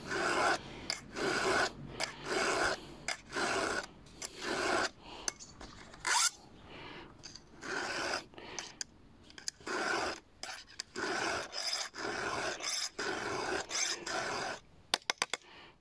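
Round chainsaw file rasping by hand across the cutting teeth of a saw chain: repeated short strokes, one to two a second, with brief pauses between. A few quick clicks near the end.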